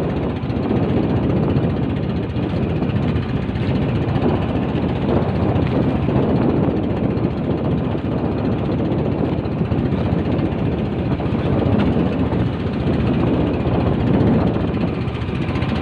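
Engine of a small motorised fishing boat running steadily, with no break or change in speed.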